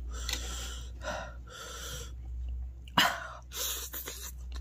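A person breathing hard through the mouth in a series of short hissing breaths, with one sharper gasp about three seconds in, as from the burn of king chilli.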